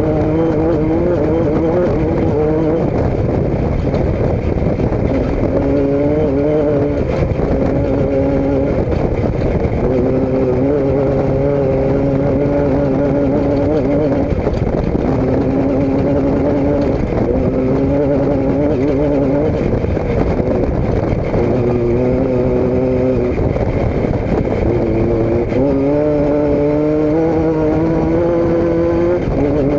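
A motor vehicle's engine running continuously, its pitch held steady for a second or two at a time and then stepping up or down as the revs change, rising a few times near the end.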